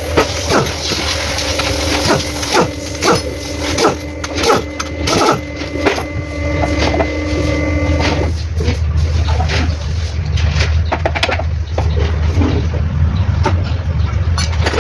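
An engine running with a steady low drone. Irregular sharp knocks and clicks sound over it for about the first half, then stop.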